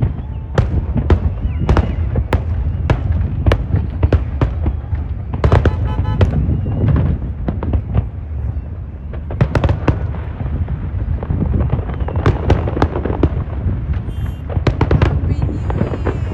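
Fireworks display: rapid, irregular sharp bangs, several a second, over a continuous low rumble of explosions.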